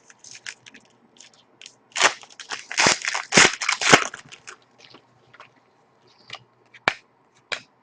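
Wrapper of a Panini Pinnacle hockey card pack being torn open and crinkled, loudest about two to four seconds in, followed by a few sharp clicks as the cards are handled.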